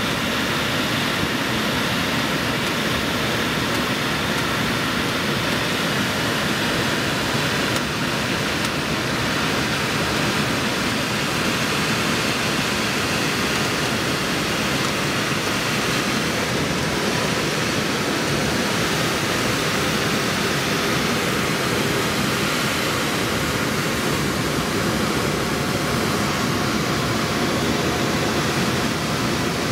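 Steady rushing of air over an engineless glider in flight, heard from inside the cockpit.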